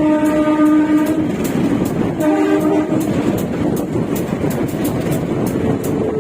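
Locomotive horn sounding a long blast that ends about a second in, then a shorter blast about two seconds in, warning at level crossings. Between and after the blasts, the rumble of the moving train's wheels on the rails with sharp clicks, heard from aboard the train.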